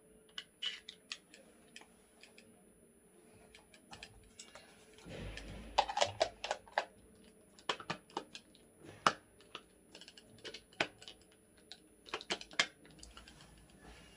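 Light plastic clicks and knocks as a plastic ice-popsicle mould is handled and its stick lids are pushed into the slots, with a short rustle about five seconds in.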